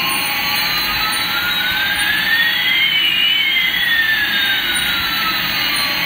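Toy Airbus A380 airliners playing their electronic jet-engine sound: a steady hiss with two whines, one rising and one falling, that cross about halfway through.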